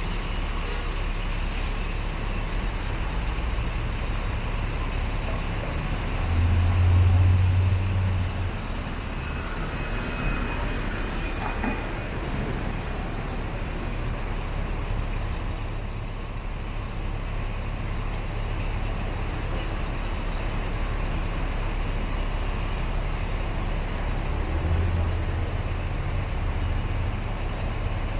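City intersection traffic: a steady rumble of passing cars. A heavy vehicle's engine swells louder about a quarter of the way in and again near the end, and a hiss lasting a couple of seconds comes about a third of the way through.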